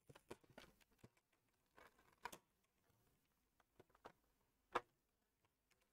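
Faint crackles and clicks of a clear plastic blister insert being handled as a vinyl figure is worked out of it, with the sharpest click a little before the end.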